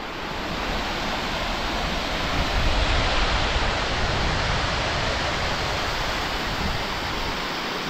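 Steady rush of water flowing over a dam's overflow, an even, dense hiss that swells a little about three seconds in.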